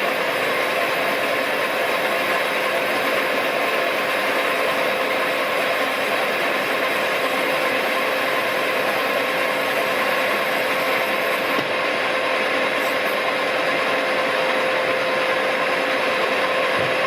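Smart & Brown Model A lathe running steadily while turning a brass spigot, an even machine noise with a constant tone through it.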